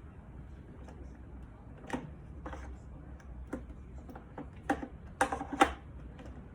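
Scattered plastic clicks and knocks from handling a Nescafé Dolce Gusto coffee machine and its parts, a few at first and then a quick cluster of louder clicks near the end.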